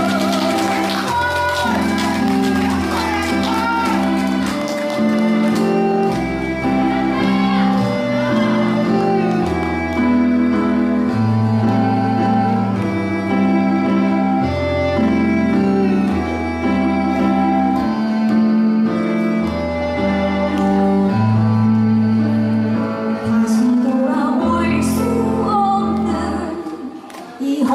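Woman singing into a microphone over recorded backing music. Her voice is heard in the first few seconds and again near the end, with an instrumental passage of the backing music in between. The music dips briefly just before the end.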